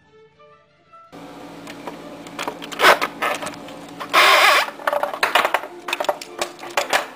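A skateboard truck with a broken kingpin being worked by hand: the loose metal hanger clicks and rattles irregularly, with a louder scrape about four seconds in.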